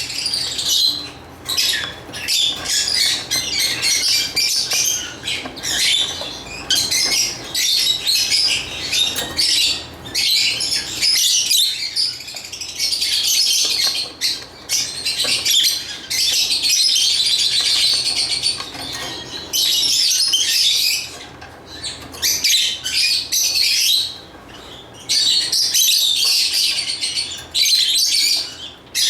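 Lovebird chirping and chattering in fast, shrill, continuous runs, broken by short pauses.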